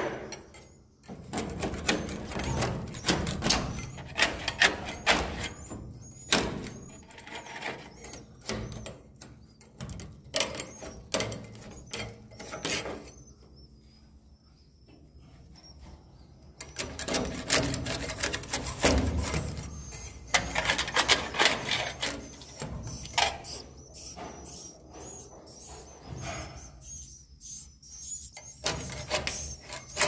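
Edible-nest swiftlets chattering and clicking in dense runs, with a faint high twittering that carries on through a quieter spell in the middle.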